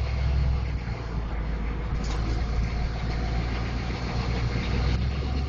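Chevrolet M1009 CUCV's 6.2-litre V8 diesel with an open exhaust, running steadily at low revs.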